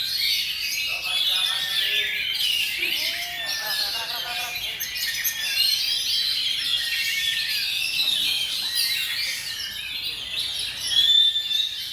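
Many oriental magpie-robins (kacer) singing at once: a dense, unbroken chorus of overlapping whistles, trills and chirps.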